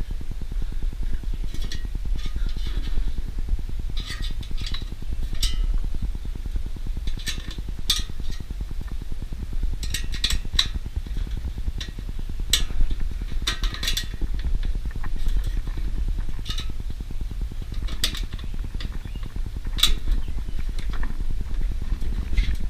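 Scattered light metallic clicks and clinks of screws and engine cover parts being handled and fitted during reassembly of a Briggs & Stratton lawn mower engine, over a steady low rumble.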